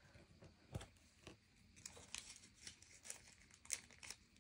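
Faint crinkling of a small plastic bag and light ticking of resin diamond-painting drills being tipped from a plastic tray. Scattered small clicks grow thicker about halfway through.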